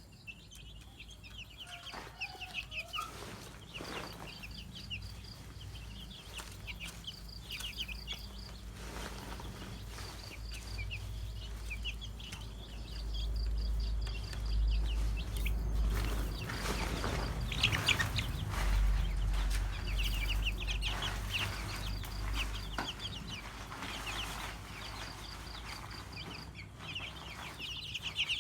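Domestic chicken chicks peeping in quick runs of short, high chirps, with a low rumble underneath that is loudest through the middle.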